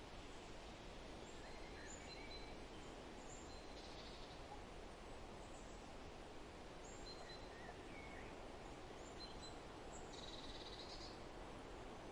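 Faint forest ambience: scattered short bird chirps and calls over a steady hiss, with a brief buzzy trill about four seconds in and a longer one about ten seconds in.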